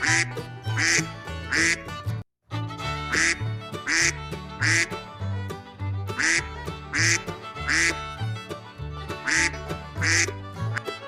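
Duck quacking in repeated sets of three, about a second apart, over background music with a steady bass line. The sound cuts out completely for a moment a little over two seconds in.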